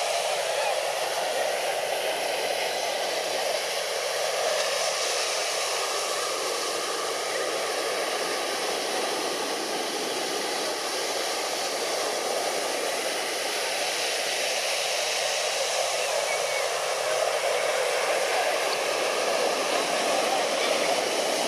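Steady outdoor ambient noise: a constant rushing hiss with faint crowd chatter beneath it, with no distinct events.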